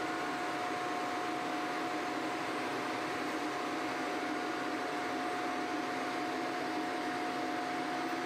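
Steady factory machinery noise: an even hiss with a constant mid-pitched whine and a low hum underneath, unchanging throughout.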